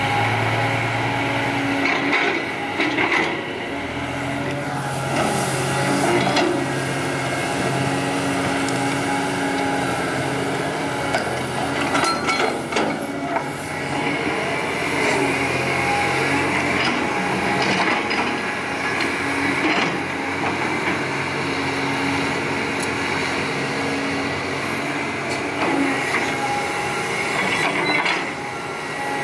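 Caterpillar 320D excavator's diesel engine and hydraulics running steadily as it digs and swings, with scattered clanks and knocks from the bucket working the soil, a few near the end.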